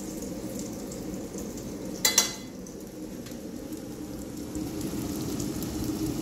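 Panko-crusted tofu sizzling steadily as it shallow-fries in hot oil in a frying pan, a little louder in the second half. About two seconds in, a single sharp metallic clatter as the metal spatula is set down on a steel baking tray.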